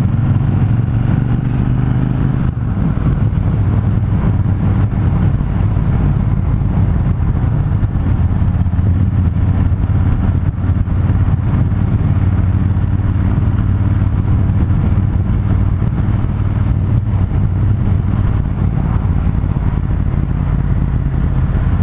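Triumph Thunderbird Storm's parallel-twin engine running at a steady highway cruise, heard from the riding position with wind rush over the microphone. Its note drops slightly about two and a half seconds in, then holds steady.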